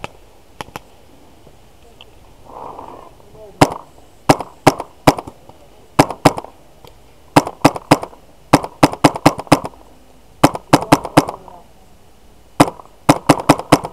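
Tippmann X7 paintball marker firing in quick bursts of two to five shots, about two dozen sharp pops in all. Each pop has a short ring after it.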